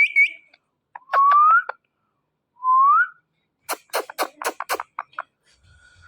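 A pet parrot whistling: a high note trailing off at the start, then two short rising whistles, followed by a quick run of sharp clicks.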